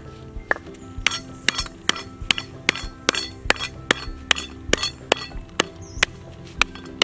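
A wooden pestle pounding a bundle of lemongrass stalks against a wooden chopping board to bruise them: a steady run of sharp knocks, about two and a half a second.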